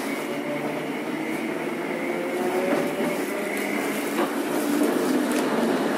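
Onboard running sound of a Randen Mobo 21 retro tram: a steady rumble with a held whine from the running gear, one tone rising slightly in pitch about halfway through.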